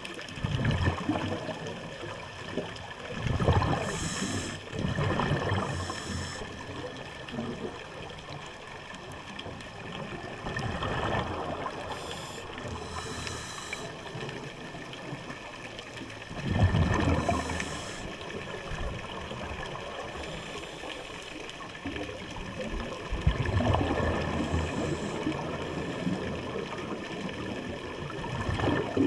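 Scuba diver breathing through a regulator, picked up by an underwater camera: exhaled bubbles gurgle and rumble out in bursts every five or six seconds, with a brief hiss on some breaths.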